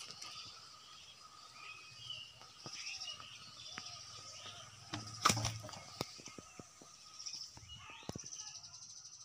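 Outdoor ambience: birds chirping over a steady high-pitched drone, with scattered small clicks and one sharp knock about five seconds in.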